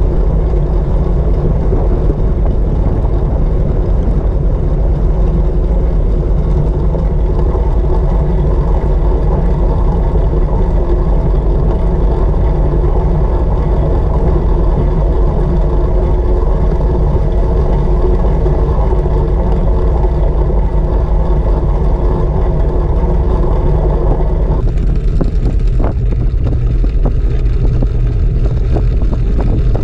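Loud, steady rumble of wind over a bike-mounted GoPro Session 5 action camera and tyres rolling at speed on a wooden velodrome track. About 25 s in the higher hiss thins out and a few faint clicks come through.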